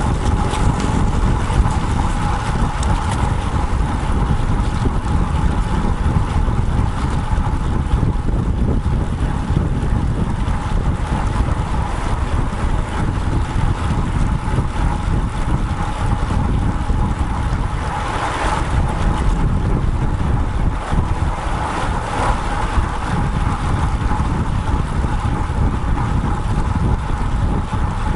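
Wind buffeting the microphone of a bike-mounted action camera on a moving road bike, a steady low rumble with a thin steady tone above it; the rush swells briefly about eighteen seconds in.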